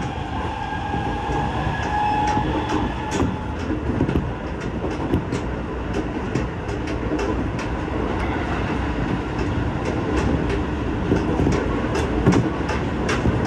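Shin-Keisei Line electric train running, heard from inside the passenger car: a steady rumble of wheels on the rails. In the first few seconds an electric motor whine rises slightly and fades out. After that come many quick sharp clicks of wheels running over rail joints and track.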